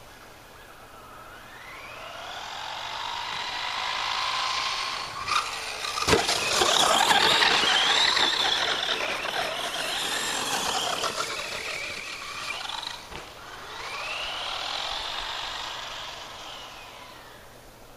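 Brushless electric motor of a Traxxas Stampede 4x4 RC truck on a 3S LiPo whining as it drives, the pitch rising and falling with throttle and speed. About five and six seconds in come a couple of sharp knocks, followed by a louder rattling stretch, and near the end a second whine rises and falls away.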